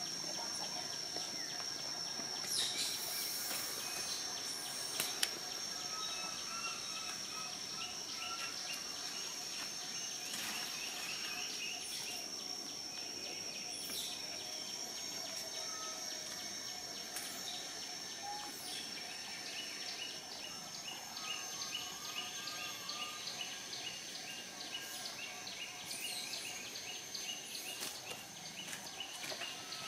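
Outdoor ambience: a steady high-pitched insect drone throughout, with bird chirps coming in short trills now and then.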